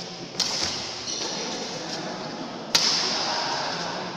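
Badminton rackets striking a shuttlecock during a doubles rally: two sharp hits a little over two seconds apart, the second the louder, each ringing on in a large echoing hall.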